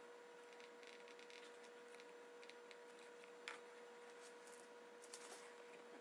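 Near silence: a faint steady hum with a few soft clicks, the clearest about three and a half seconds in.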